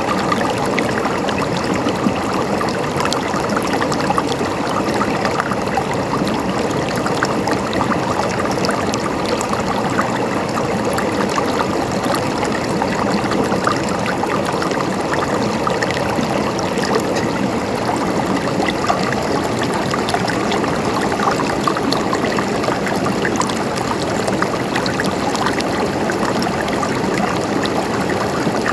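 Water flowing steadily in a stream, with a gurgling trickle over stones and no change in level.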